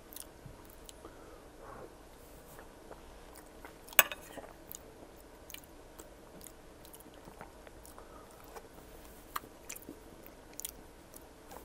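Close-miked chewing of a forkful of poutine (fries, gravy and melted mozzarella): soft wet mouth sounds with scattered small clicks, one sharper click about four seconds in.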